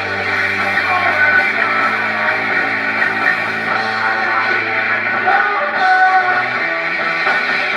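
Live rock band playing with guitar to the fore and little or no singing, recorded with very poor, muddy sound quality. The low bass note shifts about five seconds in.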